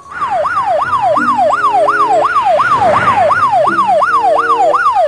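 Ambulance siren in fast yelp mode, its pitch sweeping up and down about three times a second. A lower steady tone sounds twice underneath.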